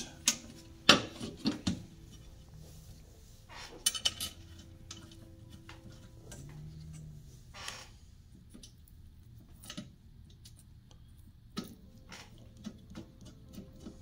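Sheet-metal bottom plate of an espresso grinder being handled and set back onto the body, with sharp metal clanks and knocks, the loudest about a second in. Near the end a hand screwdriver starts driving the plate's screws, making a run of small ticks.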